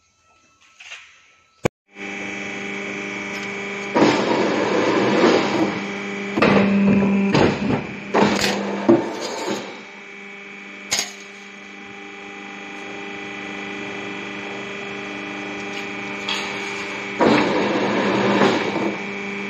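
Sheet-metal press brake: after a click, its motor starts about two seconds in and runs with a steady hum. Twice, in the middle and near the end, louder, rougher stretches of sound come over the hum as the machine bends the steel sheet.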